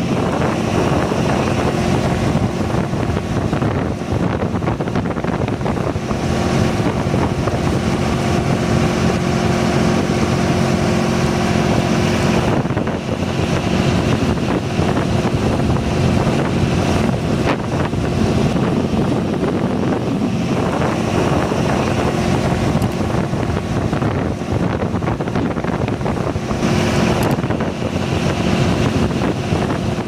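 Small boat's engine running steadily underway, with wind buffeting the microphone.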